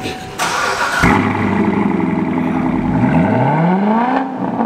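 Cold start of a C7 Corvette's V8 through a newly fitted Corsa valved axle-back exhaust: the starter cranks briefly, the engine catches about a second in with a loud flare and settles to a steady idle, then revs rise about three seconds in and drop back near the end.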